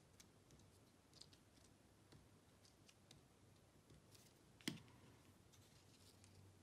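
Near silence with faint small clicks of paper being handled, and one sharper knock about two-thirds of the way through as a plastic glue bottle is set down on a stone countertop.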